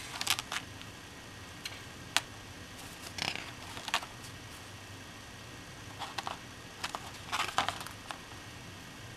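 Stiff card-stock lobby cards rustling and sliding against each other as they are handled one after another. Short scrapes come every second or two, with one sharp tap about two seconds in.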